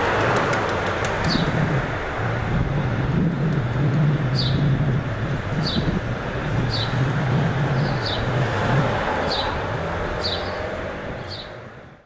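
Steady street traffic noise with a low engine hum, over which a small bird chirps repeatedly, short high chirps about once a second. The sound fades out near the end.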